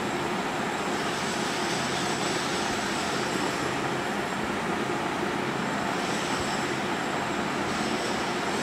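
Steady, even background hiss at a constant level, with no distinct sounds standing out.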